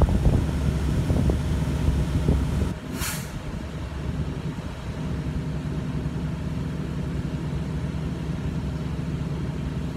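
Semi truck's diesel engine idling, a steady low hum heard inside the cab, with one brief hiss about three seconds in.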